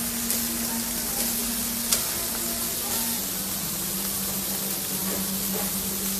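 Seafood pieces sizzling on a hot grill grate: a steady, dense hiss with a light click about two seconds in.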